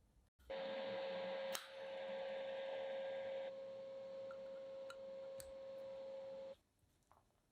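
A small motor running steadily with a constant whine over a hiss, starting and stopping abruptly, with the hiss dropping in level about halfway through and a few sharp clicks on top.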